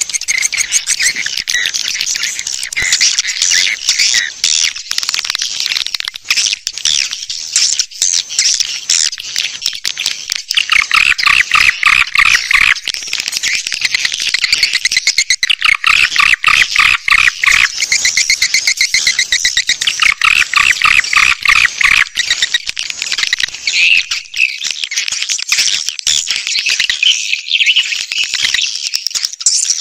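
Swiftlet calls used as a lure to draw swiftlets to nest: dense, high chattering and twittering of many birds. Three stretches of rapid buzzing trills a couple of seconds each come through, starting about a third of the way in.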